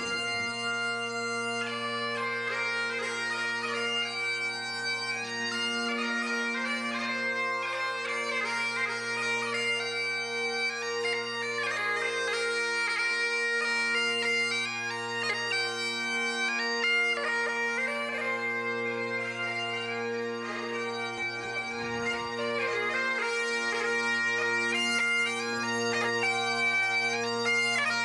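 Bagpipes playing a melody over steady, unbroken drones.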